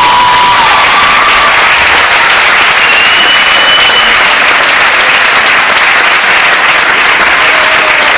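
Audience applauding loudly and steadily, with the last notes of the music dying away just at the start.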